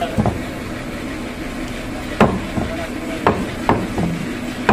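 Butcher's meat cleaver chopping beef on a round wooden chopping block: several sharp, irregularly spaced chops, the loudest coming from about two seconds in.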